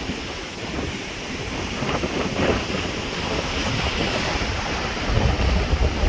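Pacific surf breaking and washing against a rocky shoreline as a steady rush, with wind buffeting the microphone, heaviest near the end.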